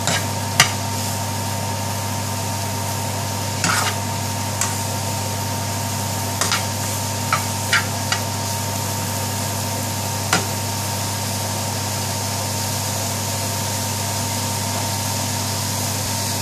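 Sliced button mushrooms and onions frying in a non-stick pan with a steady hiss and a low hum underneath, while a metal spoon stirs them, clicking sharply against the pan about nine times in the first ten seconds.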